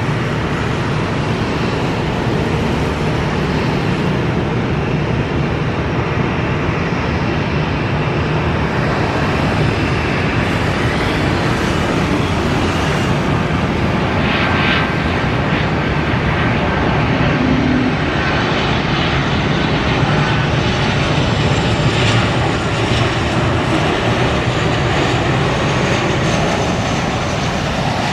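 Boeing 737-900ER's CFM56-7B turbofan engines running on final approach, a steady jet rumble that grows a little louder as the airliner comes closer, with a faint thin whine about halfway through.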